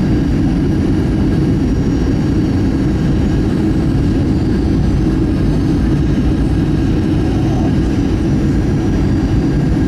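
Steady cabin noise inside a Southwest Airlines Boeing 737 on approach to land: a low, even rumble of the jet engines and rushing airflow, with a faint steady whine above it.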